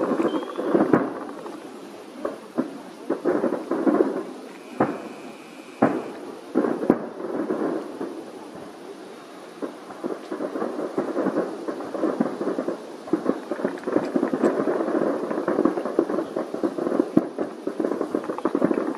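Fireworks display: aerial shells bursting in a continuous run of bangs, many close together and overlapping, over a steady noisy crackle between them.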